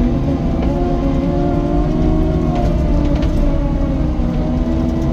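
Diesel engine of a Cat 255 compact track loader running under working load while it pushes debris around a pile. It is a steady drone whose pitch wavers slightly.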